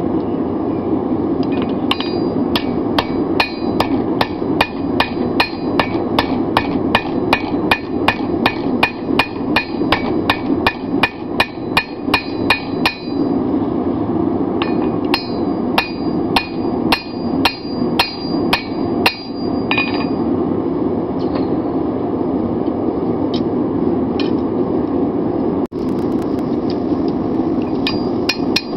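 Hand hammer striking red-hot steel on an anvil, about three blows a second, each with a bright ring from the anvil. The blows come in two runs with a short pause between them, then a few stray blows, and start again near the end. A steady rushing noise runs underneath.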